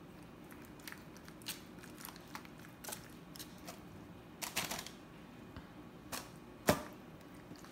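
A spoon scooping thick tomato sauce from a plastic food tub and spreading it on pasta: scattered soft clicks and scrapes of the spoon against the tub, a short flurry about four and a half seconds in, and one sharper knock near the end.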